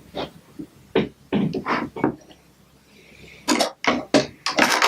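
Plastic Lego Duplo bricks and figures clicking and knocking together as they are handled, a scatter of short clacks with a busier cluster near the end.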